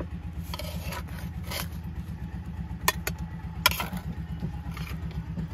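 Metal spatula scraping and clinking against a metal pan and enamel plates while fried fish roe is served out, with two sharp clicks about three seconds in. Under it an engine runs steadily with a low even throb.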